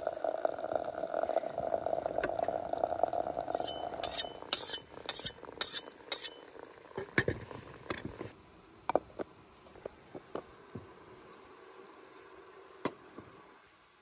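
Hot water running from a samovar tap into a glass teapot for about four seconds, followed by a quick run of bright glass clinks as the teapot and its lid are handled, then a few scattered knocks.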